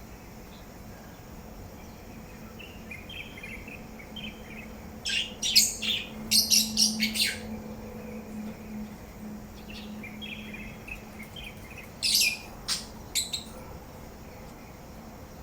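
Pet parrot chattering softly, with two runs of loud, shrill calls, the first about five seconds in and the second about twelve seconds in.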